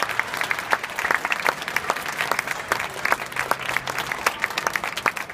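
Audience applauding: many hands clapping in a dense, irregular patter, some claps sharp and close.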